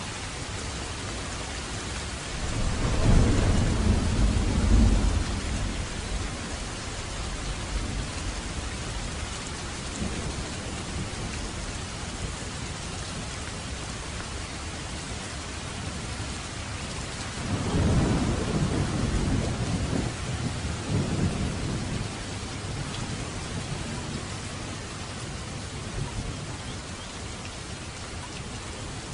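Steady rain falling, with two long rolls of thunder rumbling over it: one a few seconds in and another a little past the middle.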